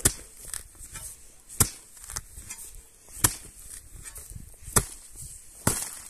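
Steel spade chopping down into turf and soil around an elecampane root, five sharp strikes about a second and a half apart, cutting through the grass roots to dig the plant out.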